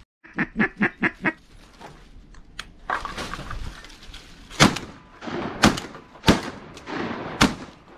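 A quick run of about six duck quacks, then five sharp, loud cracks roughly a second apart in the second half, the loudest sounds here.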